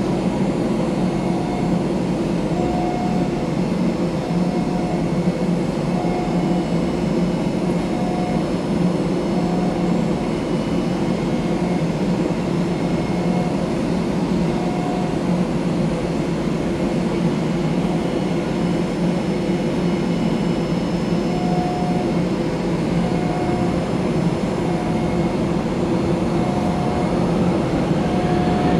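Steady drone of an Airbus A320-214 and its ground equipment at the gate, with a faint short tone repeating about every second and a half. Near the end a turbine whine starts to rise in pitch.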